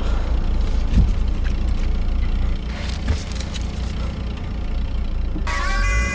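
Low steady rumble of a car's engine and road noise heard from inside the cabin. Music comes in near the end.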